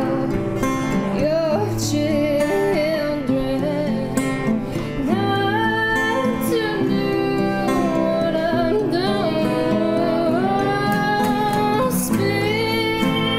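A woman singing with acoustic guitar accompaniment, her voice holding long, wavering notes over the strummed chords.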